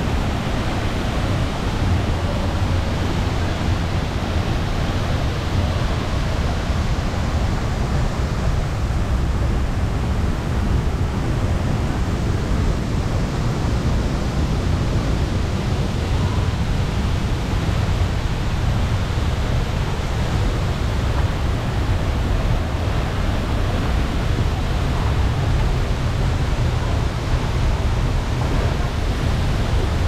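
Steady, unbroken rushing of a waterfall pouring into a rock pool.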